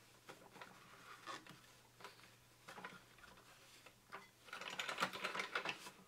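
Cloth rag being rubbed around inside a food mixer's opened plastic housing: faint rustling and scraping with light clicks and knocks against the plastic, getting busier and louder from about four and a half seconds in.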